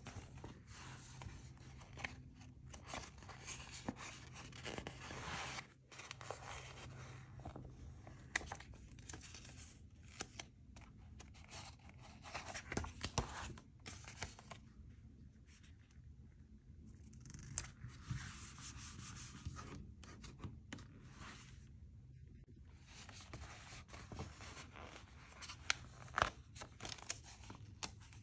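Hands handling a glossy paper sticker book: pages rustling and turning, and die-cut stickers being peeled off their sheets, in several stretches with sharp clicks and taps here and there.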